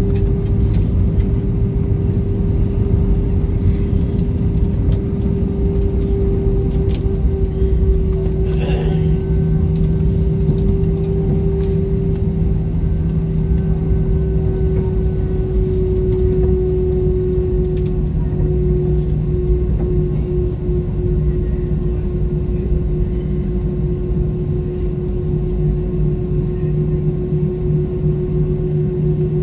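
Airbus A321 cabin noise on the ground after landing: the jet engines run near idle with a steady whine that drifts slowly lower, over a low rumble of the aircraft rolling along the pavement.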